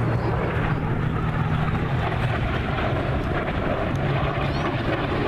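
Aircraft engine droning steadily as a display plane flies, a continuous low hum with a noisy rush over it.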